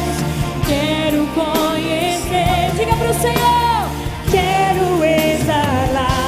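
Live gospel worship song: a female lead voice singing with vibrato over a full band, with a long downward slide in pitch about halfway through.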